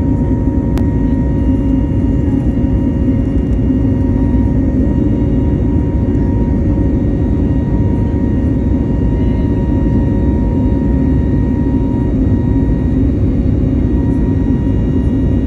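Cabin noise of an Airbus A320neo heard from a seat beside its CFM LEAP-1A engine: a steady low rumble and rush of air with a few faint steady whining tones, running evenly.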